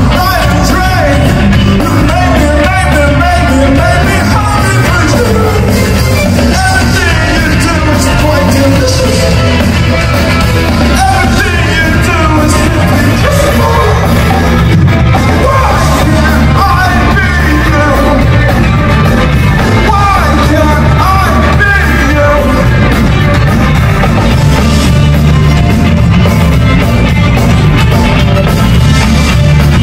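Live rock band playing loud: electric guitar, electric bass and drums with lead vocals sung through the PA, heard from the audience.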